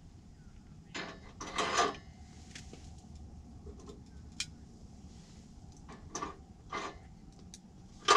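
Handling noises: short crinkling rustles, loudest about a second in and again twice near the end, with scattered light clicks as hands work the top of a propane cylinder heater.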